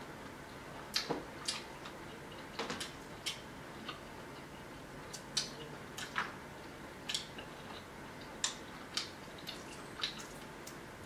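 Boiled shellfish being peeled and cracked by hand: small sharp clicks and wet squishes at an irregular pace, a second or so apart.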